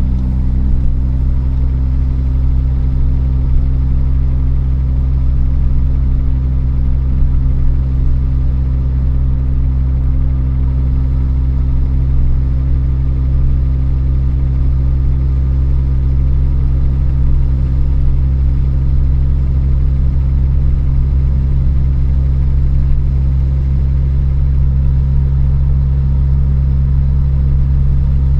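Honda D16Y8 1.6-litre four-cylinder engine running steadily with a tapping, ticking noise, the sign of a worn engine: bearing wear and low oil pressure, cured by new bearings and an oil pump.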